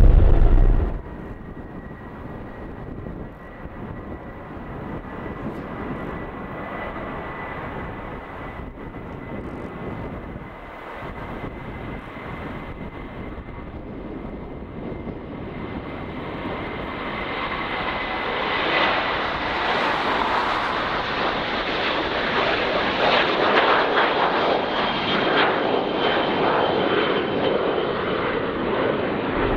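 Boeing 737-800 jet taking off, its CFM56 engines giving a steady high fan whine over the jet noise, growing louder through the second half as the aircraft rolls closer and passes. It opens with about a second of deep jet rumble that cuts off abruptly.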